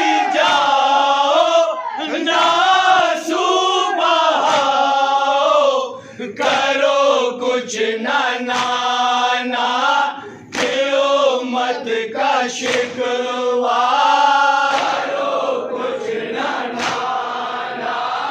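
Men's voices chanting a nauha, a Shia mourning lament, as a group in sung phrases, with short breaks between lines. Sharp hits cut through now and then, and toward the end the sound turns more to a crowd.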